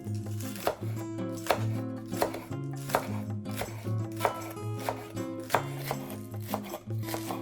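Knife chopping green onions on a cutting board, about one cut a second, over background music.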